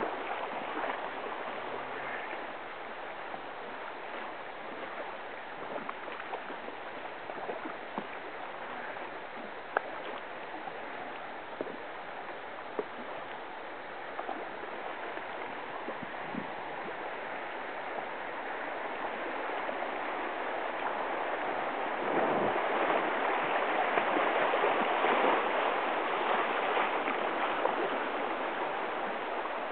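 Virgin River current rushing and gurgling around a kayak, a steady water noise that swells louder about two-thirds of the way through, with a few light clicks.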